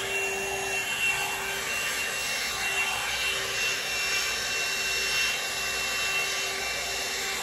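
FoxyBae hot air brush (blow-dryer brush) running steadily: a rush of blown air with a constant motor whine over it.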